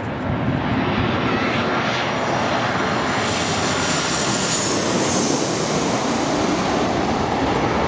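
Airliner passing low overhead on landing approach: a loud, continuous rushing engine noise with a high whine that grows and is strongest a little past halfway through.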